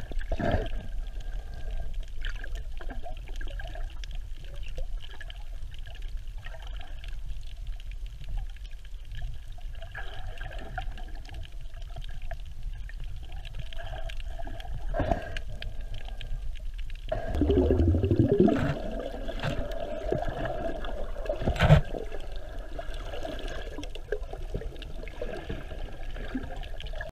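Underwater ambience picked up by a camera filming on the seabed: a steady low rumble of moving water with scattered small clicks. About 17 seconds in there is a louder churning stretch of water noise lasting a couple of seconds, and a sharp click comes about 22 seconds in.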